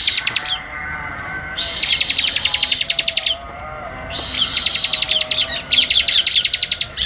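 Bar-winged prinia (ciblek) song: repeated bouts of very fast, high-pitched, buzzy trills, each lasting about two seconds with short gaps between. Softer, lower twittering carries on underneath.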